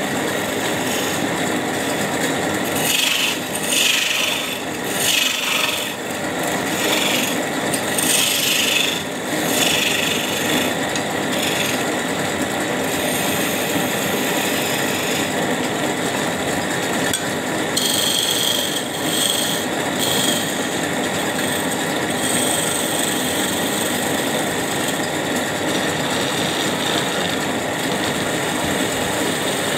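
Hand chisel cutting a wooden bed leg spinning on a wood lathe: a rough scraping hiss in repeated passes over the lathe's steady running noise. The cutting is strongest in a run of passes in the first third and again a little past the middle.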